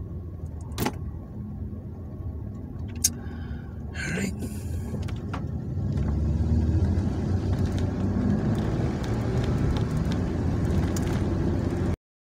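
Car engine and road rumble heard from inside the cabin while driving, stepping up in level about halfway through as the car gets under way. A few short clicks sound in the first half, and the sound cuts off just before the end.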